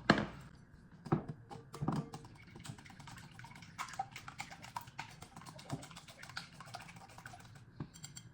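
Eggs being beaten with a fork or whisk in a bowl for an egg wash: a quick, irregular run of clicking taps against the bowl, with a few louder knocks in the first two seconds.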